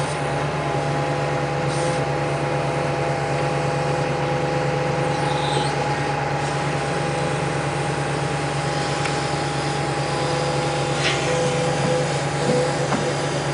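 Wheeled excavator's engine running steadily under load, a constant hum with a higher whine held over it, while its ripper tooth works the soil.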